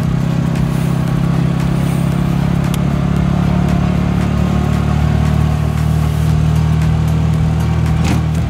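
Engine of a Bajaj Maxima Z three-wheeler running steadily while under way, with road noise.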